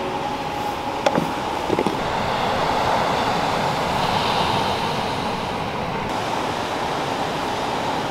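Surf and wind on an open beach: a steady wash of breaking waves. A couple of small, sharp clicks come between about one and two seconds in.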